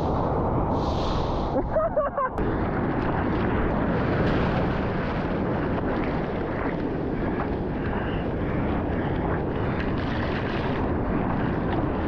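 Steady rushing noise of surf and wind buffeting the microphone, with a brief break about two seconds in.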